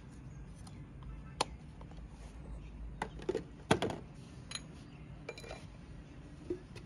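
Light clinks and knocks from small containers being handled: a handful of short, sharp sounds scattered over several seconds, the loudest a little under four seconds in, over a steady low background hum.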